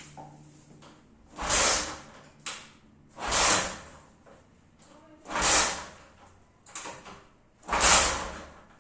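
Honda CG Titan motorcycle engine, long laid up, being cranked over in four tries about two seconds apart, each a short burst of sound, without starting.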